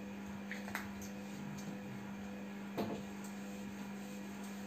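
Quiet steady electrical hum with a few faint clicks, the clearest about three seconds in.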